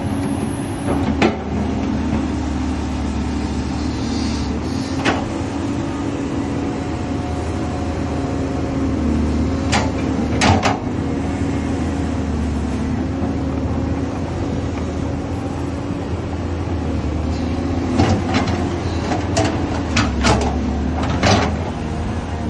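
Caterpillar 320D hydraulic excavator's diesel engine running steadily at working speed, with occasional sharp knocks, a cluster of them near the end.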